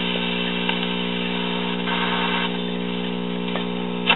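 Hallicrafters S120 tube shortwave receiver's speaker giving steady static with a hum under it while being tuned across a shortwave band, the noise swelling briefly about two seconds in. The hum is the sign of a bad filter capacitor. A couple of sharp clicks come near the end.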